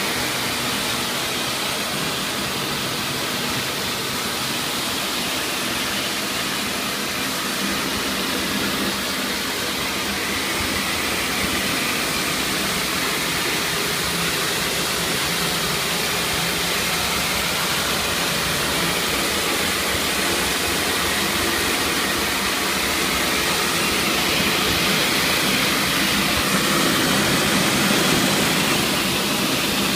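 Tile-and-grout cleaning machine running steadily: a continuous rush of spray and vacuum suction, growing slightly louder toward the end.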